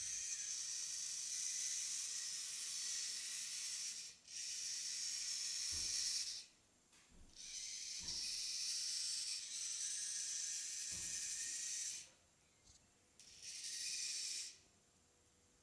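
Small robot's drive servo motors whirring in a high-pitched, hissy drone that stops and starts several times as the robot is driven in short moves.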